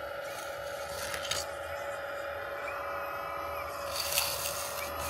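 Hydraulic pump of a 1/14-scale RC CAT 330F excavator running with a steady whine as the arm and bucket work, with a short scrape of the steel bucket in hard soil about a second in and again near the end.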